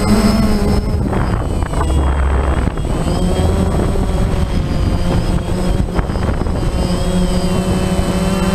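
DJI quadcopter's electric motors and propellers running at high speed as it climbs, a loud, steady buzzing hum heard from the camera on the drone itself. Its pitch wavers for a few seconds, then holds steady.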